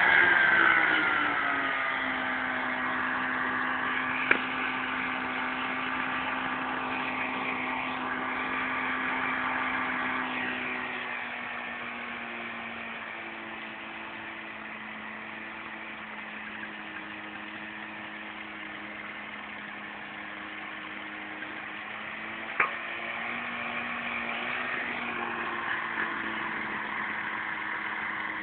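Apollo ultralight trike's engine and propeller droning. The pitch and loudness drop over the first two seconds, then settle into a steady hum that steps down again about ten seconds in and fades slowly. Two sharp clicks stand out, about four seconds in and near the end.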